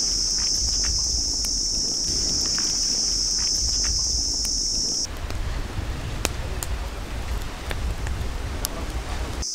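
Outdoor ambience: a steady, high insect drone over a low rumble. The insect drone cuts off suddenly about five seconds in, leaving the rumble and hiss with a few faint clicks.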